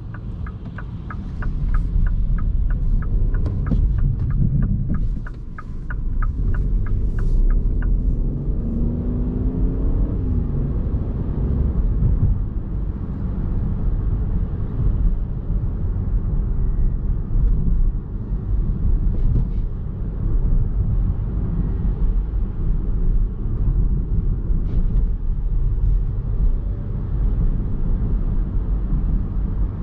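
Cabin sound of a 2021 MINI Cooper S E ALL4 Countryman plug-in hybrid on the move: a steady low road and drivetrain rumble. For the first eight seconds or so the turn-signal indicator ticks at about two to three clicks a second, and a brief rising engine note follows as the car pulls away.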